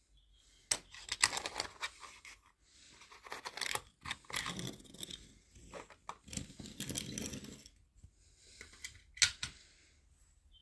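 Irregular scraping, rustling and clicking of hands handling a model locomotive and plastic packaging, with a few sharp knocks, the loudest about a second in and about nine seconds in.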